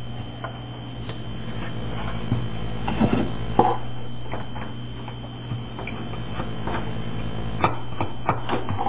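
Needle-nose pliers and straight pins being worked through a CA hinge on an RC aircraft's control surface: a few light, scattered clicks and taps over a steady low hum.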